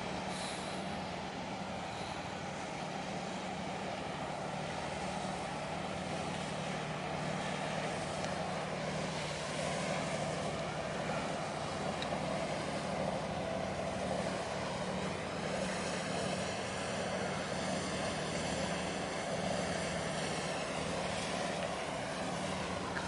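Steady low engine drone of ships moving through the harbour close by, with a constant hum under it. About two-thirds of the way in, something passing adds a sweeping whoosh that fades a few seconds later.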